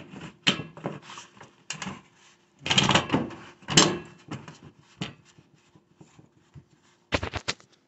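Metal floor vent register being pushed and worked down into its floor opening: an uneven series of scrapes, rattles and knocks, ending in a quick run of sharp clicks.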